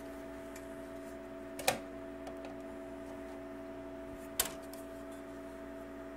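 Two sharp clicks, about three seconds apart, as a riser card assembly is pressed back into a Dell PowerEdge R710 server chassis, over a steady low hum.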